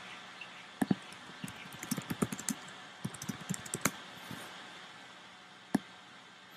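Fingers tapping on and handling an iPad close to its built-in microphone. Two knocks come about a second in, then a quick run of light taps over the next three seconds, and one more knock near the end.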